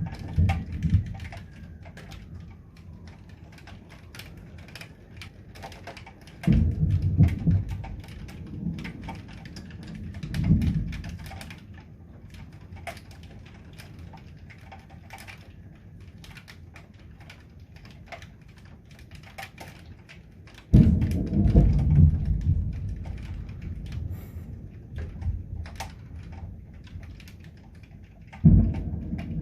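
Thunder rumbling again and again in a storm: five low rumbles, some breaking in suddenly, the longest about two-thirds of the way through. Between them, rain patters steadily with scattered drips ticking.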